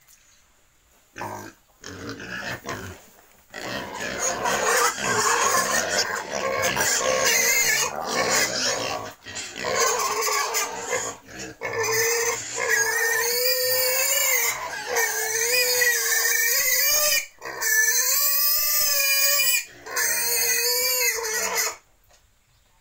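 Pigs squealing loudly and almost without pause: long, wavering, high calls, with a few short calls at first. They stop abruptly near the end.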